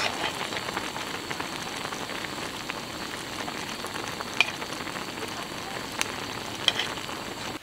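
Pot of ramen boiling on a camping stove: a steady sizzling bubble with scattered small pops.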